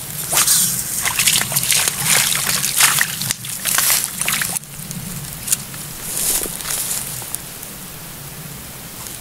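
Water sloshing and trickling, with irregular splashes through the first half that settle into a steadier trickle after about four and a half seconds.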